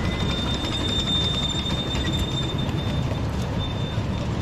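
Miniature live steam train, a small steam locomotive and its passenger carriages on 7¼-inch gauge track, rolling past close by. Its wheels make a steady rumble with scattered clicks, and a thin high squeal runs until about three seconds in.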